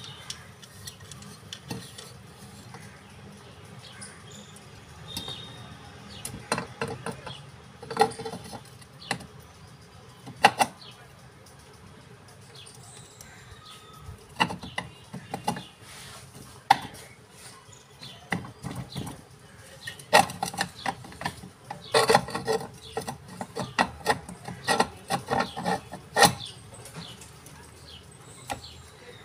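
Irregular clicks, knocks and clatter of hard parts as a new field coil is worked by hand into a demolition hammer's motor housing, a few scattered knocks at first and dense clusters of them in the second half.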